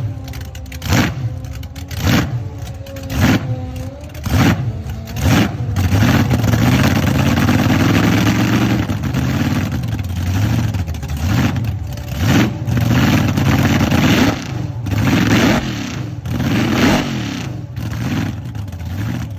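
Supercharged 1000-plus-horsepower car engine blipped in sharp revs about once a second, then held at high revs for several seconds with tyre noise in a burnout, then blipped again in short revs.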